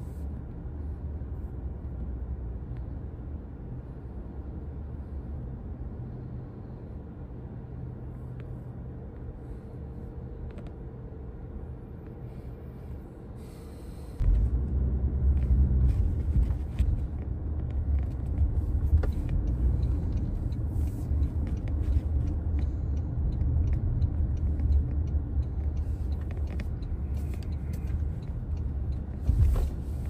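Cabin noise inside a 2025 Toyota Camry LE hybrid driving in town: a steady low rumble of the car in motion. About halfway through the rumble steps up suddenly and stays louder.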